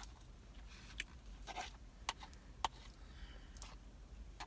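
Faint, scattered clicks and small smacks, about half a dozen over a few seconds: mouth and handling noises while eating.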